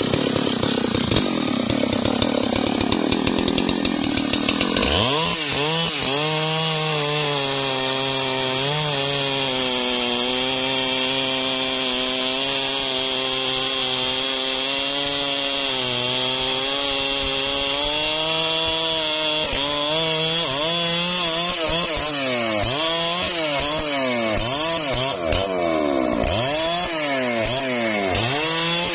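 Large Stihl two-stroke chainsaw cutting through a thick trembesi trunk. The engine holds a steady loaded pitch through most of the cut. From about twenty seconds in, its revs rise and fall again and again.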